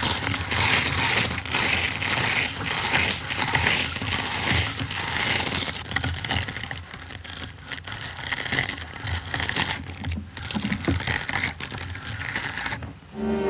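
Cartoon sound effects: a long, noisy clatter of scraping and rattling with many sharp clicks, easing somewhat in the second half.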